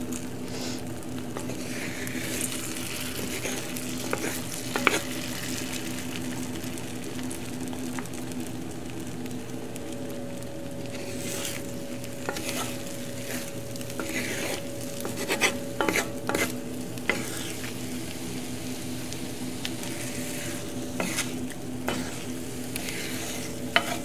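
Beaten eggs sizzling in a hot, oiled cast-iron skillet as a wooden spatula stirs and scrapes them, with scattered knocks of the spatula against the iron, most of them in the middle and near the end.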